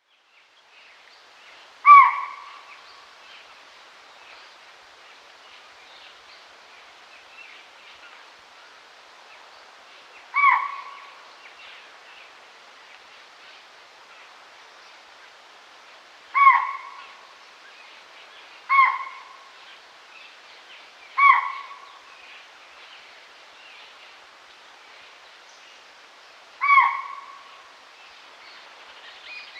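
A deer calling: six short, high-pitched calls spaced several seconds apart, each a quick dip in pitch, over a faint steady background hiss.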